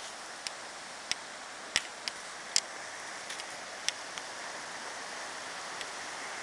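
Steady rush of a stream's flowing water, with a few sharp clicks scattered through the first four seconds.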